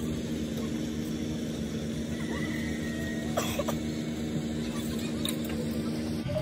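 A machine's steady low hum, with two faint clicks, one about halfway through and one near the end.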